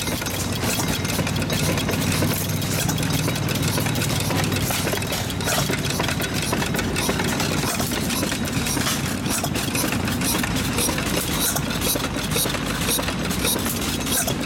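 Foos-built Petschel Storage Battery Co. hit-and-miss gas engine running, its twin flywheels turning, with a steady low engine note and fine clicking throughout.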